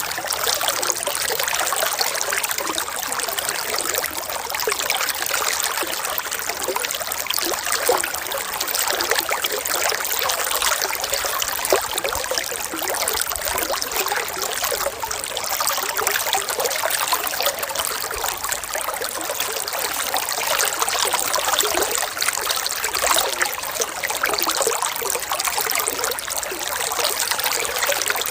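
Water trickling and bubbling steadily in a stream, a constant close splashing with fine droplet sounds.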